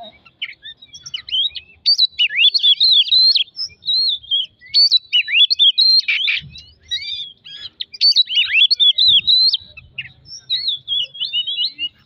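Oriental magpie-robin singing: a fast, varied run of whistled notes, chirps and trills, broken by short pauses about four and seven seconds in.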